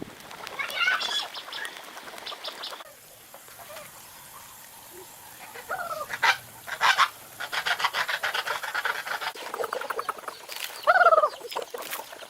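Poultry calling in bursts of rapid, gobble-like rattling, with a few short calls that slide down in pitch; the loudest call comes about eleven seconds in.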